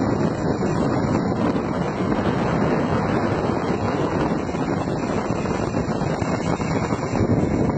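Bicycle-mounted two-stroke chainsaw engine running steadily, with heavy wind noise on the microphone.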